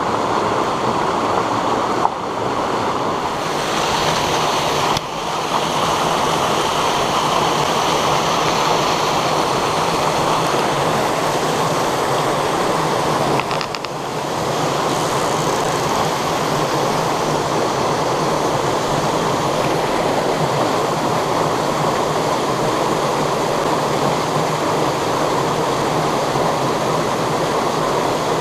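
Mountain stream pouring over rocks in small waterfalls: a loud, steady rush of water that dips briefly about halfway through, then carries on.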